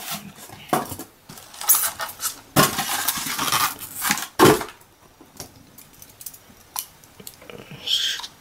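Foam packaging tray and plastic wrap being handled as a model is taken out: a few seconds of scraping and rustling, then scattered light clicks and a short cutting sound from scissors near the end.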